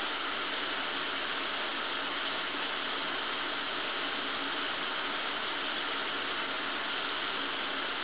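Shower running: an even, unchanging hiss of spraying water.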